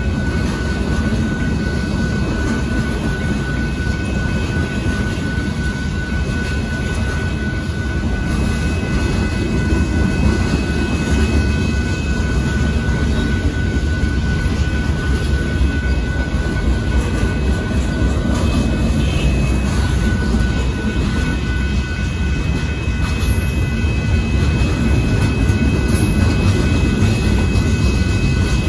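Boxcars of a CSX freight train rolling past a grade crossing: a steady low rumble of wheels on rail, with thin steady high tones above it.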